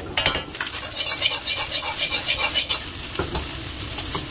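Metal ladle stirring and scraping fried rice around a hot iron wok, with the rice sizzling. A quick run of scraping strokes comes first, then it settles to a steadier sizzle.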